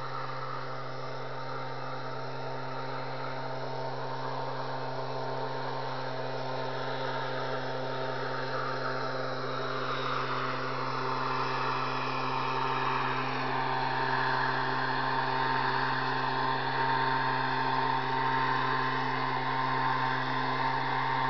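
Motorized backpack mist blower's small two-stroke engine running steadily at high speed while spraying herbicide, growing gradually louder.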